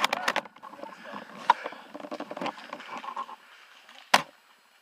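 Handling and rustling noise of a scope-mounted airsoft sniper rifle being swung around in undergrowth, with a sharp click about one and a half seconds in and a loud sharp crack about four seconds in.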